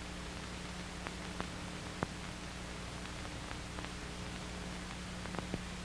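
Steady hiss and low hum of an old optical film soundtrack, with a few faint clicks scattered through it.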